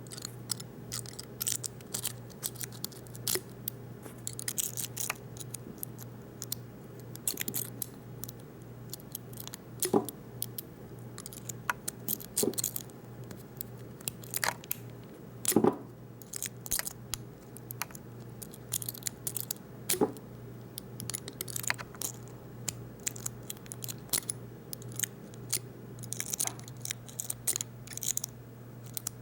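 Lock pick raking inside the keyway of a Master Lock V-Line padlock, making irregular light metallic clicks and scrapes over a low steady hum.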